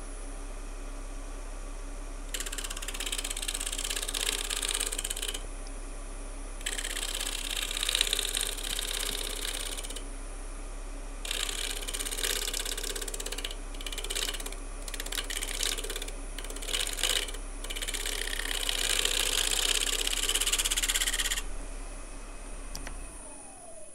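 Wood lathe running with a steady hum while a turning tool cuts the spinning natural-edge bowl in about five scraping passes of a few seconds each, some broken into short strokes. Near the end the lathe is switched off and winds down.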